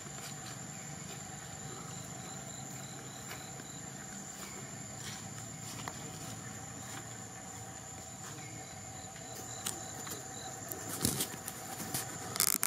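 Forest ambience: a steady high-pitched insect drone with faint, evenly spaced chirps in the middle. Several sharp knocks and rustles near the end.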